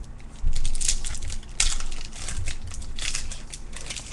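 Crinkling and tearing of a foil baseball card pack wrapper being handled, in irregular rustles, loudest about a second and a half in and again near three seconds.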